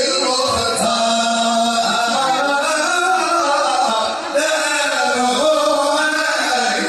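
Voices singing an Arabic madih, a devotional praise song for the Prophet, in long, wavering melodic lines.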